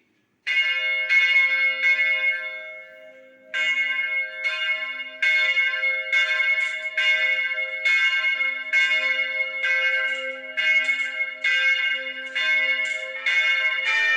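Church bells ringing, stroke after stroke with long ringing overtones. After two opening strokes the sound dies away briefly, then the strokes come steadily about twice a second.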